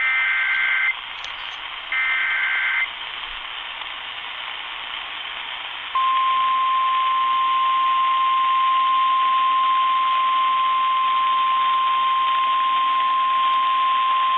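Weather radio alert coming in over static: two short bursts of warbling data tones (the digital SAME header), then from about six seconds in a single steady warning alarm tone. It signals a new National Weather Service severe thunderstorm warning about to be read.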